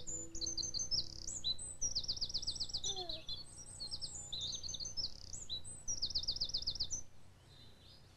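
Birdsong: several birds chirping and twittering high up, with two quick rapid trills about two and six seconds in. It fades out about a second before the end.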